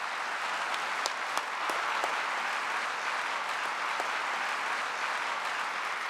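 Audience applauding, a steady dense clapping.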